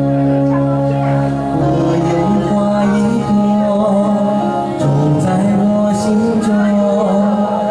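A man singing karaoke into a handheld microphone over a recorded backing track with held chords, amplified through a PA.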